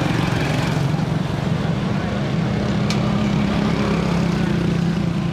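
Road traffic noise with a vehicle engine running steadily close by, and one short sharp click about three seconds in.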